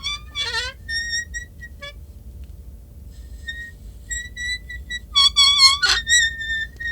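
Creaky door hinge squeaking in a string of short high-pitched squeals, with a wavering, falling squeal at the start and louder squeals about five seconds in, over a low steady hum.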